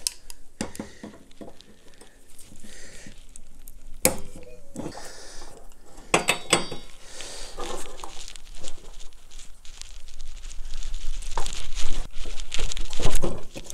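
Irregular metallic clinks and knocks of hand tools, a ratchet wrench and locking pliers, working against a riding mower's steel deck to loosen the spindle pulley nut. The knocks grow louder near the end.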